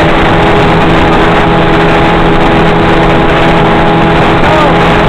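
Motorboat engine running steadily at speed while towing a tube, a constant drone over the loud rush of wind and water.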